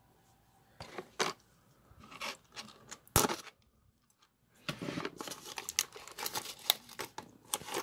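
Plastic shrink wrap on a cardboard box being torn and crinkled by hand: a few scattered rustles, one sharp crack about three seconds in, then a steady run of crackling from about halfway on.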